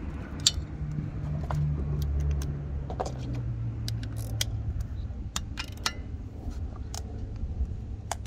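Scattered metallic clicks and clinks of a socket wrench on a universal-joint extension as the bolts of a new purge valve on a Bendix AD-9 truck air dryer are tightened, over a steady low rumble.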